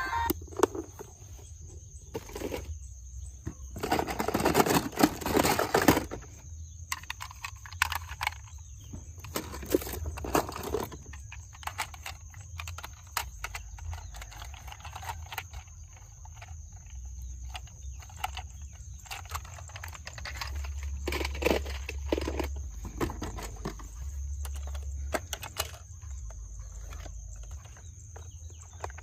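Toy cars being handled: irregular plastic clicks, knocks and rattles, with a louder scraping rush about four seconds in, over a faint steady high whine and a low hum.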